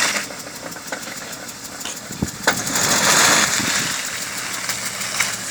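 BMW E39's M52 2.8-litre straight-six engine running with a knock, getting louder for a second or two after a couple of sharp clicks a little over two seconds in.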